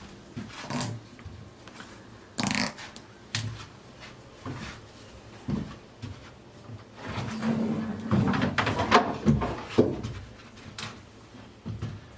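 Irregular knocks, thuds and scrapes of objects and materials being handled and set down while a workspace is cleared, with a busier stretch of scraping and bumping about seven to nine and a half seconds in.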